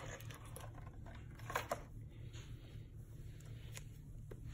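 Thin plastic packaging crinkling and rustling as it is handled and pulled off a toy, with a few sharp crackles about a second and a half in.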